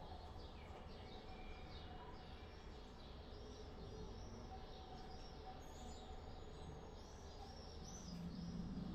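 Faint ambience of small birds chirping over and over, over a low steady background rumble. A low steady tone comes in near the end.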